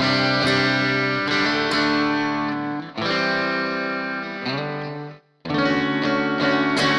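Single-coil electric guitar playing sustained, ringing chords through a clean amp-simulator tone, with a new chord struck every second or few seconds. There is a short break a little past five seconds, then a last chord that fades away at the end.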